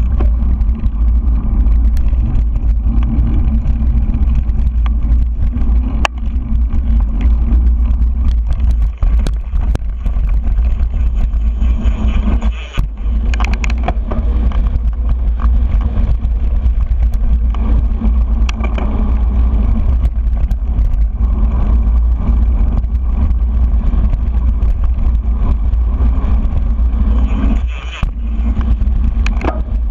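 Mountain bike rolling along a dirt trail, heard through a handlebar-mounted GoPro: steady, loud low rumble from wind buffeting the camera and tyres on the packed dirt. Scattered sharp clicks and rattles come from the bike over bumps.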